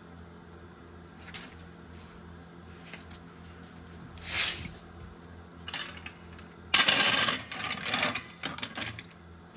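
Metal clattering and scraping of a steel floor jack being pulled into place on a concrete floor, with a short scrape about four seconds in and the loudest clatter about seven seconds in, followed by a few clicks. A steady low hum runs underneath.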